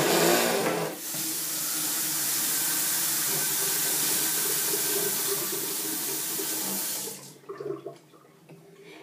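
Water rushing steadily from a tap, starting with a louder burst in the first second and stopping about seven seconds in.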